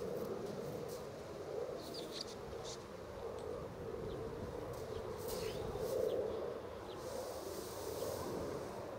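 Insects buzzing: a steady low hum that swells and fades, loudest about six seconds in, with a few faint high bird chirps over it.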